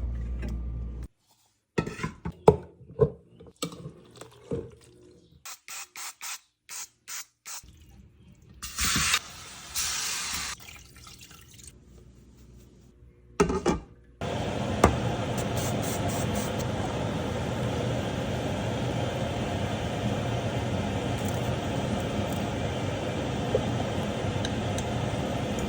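Kitchen food-prep sounds: scattered clicks and knocks, a row of quick even ticks, and a short hiss about nine seconds in. From about fourteen seconds on there is a steady rushing noise that PANN files under water.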